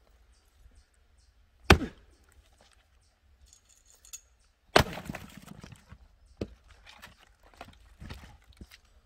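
Axe blows into a firewood log: two hard strikes about three seconds apart, the second followed by a brief splintering crackle, then two lighter knocks of wood.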